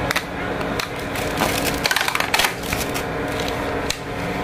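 Thin clear plastic clamshell food container being opened and handled, its lid and sides crackling and clicking, busiest in the middle. A steady low hum runs underneath.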